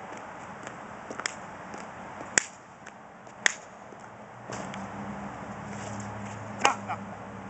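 A few sharp slaps from a dancer's feet, hands and knee pads on a paved surface, the loudest near the end; a steady low hum comes in about halfway through.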